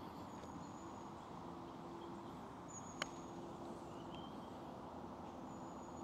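A single sharp click of a putter striking a golf ball about halfway through, over a low steady outdoor background with a few faint, thin, high bird chirps.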